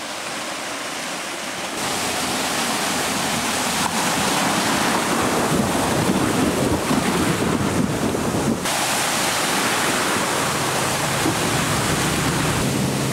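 2014 Range Rover Sport driving through water and mud, a continuous rush of splashing water from the wheels that changes abruptly twice. A low engine hum comes in near the end.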